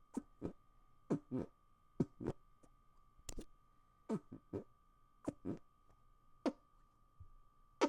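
Hand farts: air squeezed out between cupped palms, giving a string of short, wet, flatulent blurts, often in quick pairs, about one or two a second and varying in loudness. A faint steady high hum runs underneath.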